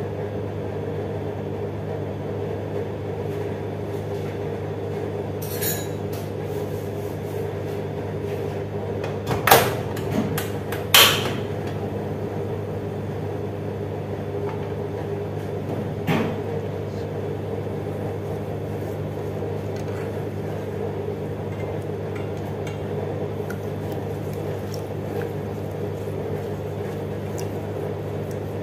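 A steady low mechanical hum throughout, with sharp metal clinks of a metal spoon against a stainless steel saucepan: two about ten seconds in, a second apart, and one more a few seconds later.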